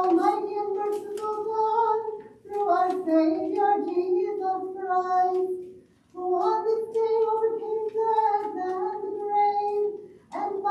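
A high singing voice sings a hymn or sung liturgy in long held notes, in phrases broken by short breath pauses about 2, 6 and 10 seconds in, with little or no instrumental accompaniment.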